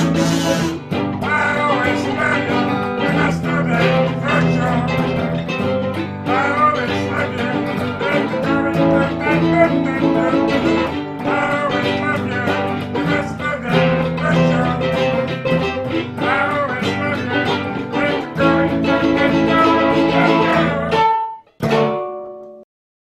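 Raw bluesy guitar band music. It breaks off about 21 seconds in, then a brief final chord rings out and stops.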